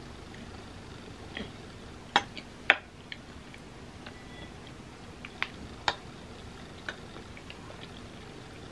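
Metal spoon cutting into a pie and clicking against a glass pie dish, a handful of sharp separate clicks, the two loudest about half a second apart a couple of seconds in.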